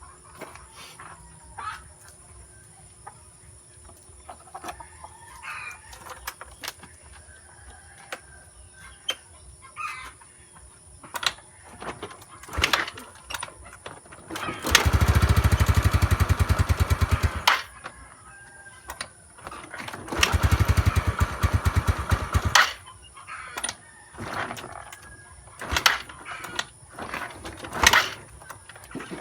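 Yamaha Mio Sporty scooter engine being cranked twice, for about two and a half seconds each time, without catching: a hard start. Scattered clicks and a rooster crowing and clucking in between.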